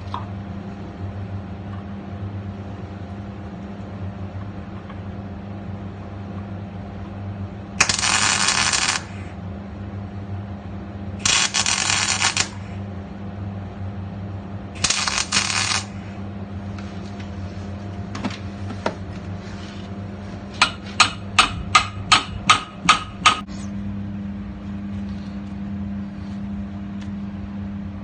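A steady low hum throughout. Three separate hissing bursts of about a second each come early on, followed later by a quick run of about nine sharp metal hammer strikes, roughly three a second, that ring briefly.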